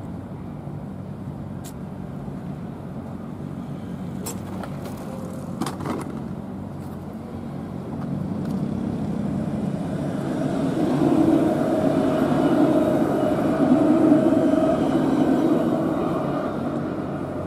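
Alstom Citadis 402 tram passing by: its running noise swells from about halfway in, is loudest for a few seconds with a steady whine, then fades near the end.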